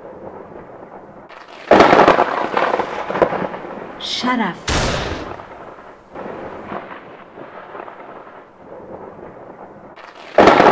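Loud sudden blast sound effect, like a gunshot with a long rumbling tail, about two seconds in, followed by quieter cracks, and a second blast just before the end.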